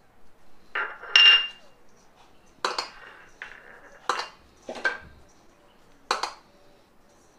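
Stainless steel mixing bowl knocked about seven times, each knock a short clink with a brief metallic ring, as a hand rubs mawa into coarse churma crumbs inside it.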